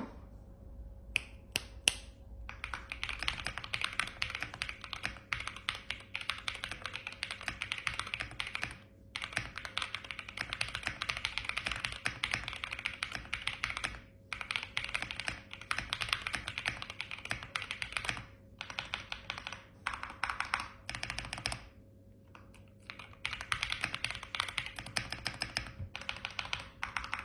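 Fast typing on a Keychron Q6 Max full-size mechanical keyboard with hand-lubed Akko V3 Cream Yellow Pro linear switches and PBT keycaps. A few single keystrokes come first, then quick runs of keypresses with short breaks between them.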